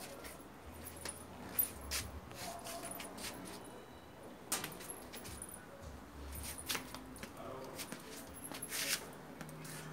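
Kitten playing with a small ball on a hard tile floor around the legs of a clothes-drying rack: light sharp clicks and taps scattered a second or so apart, the loudest near the end.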